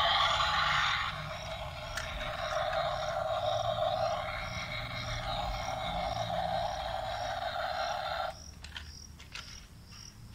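Toy remote-control excavator running: a steady buzzing noise that cuts off abruptly about eight seconds in.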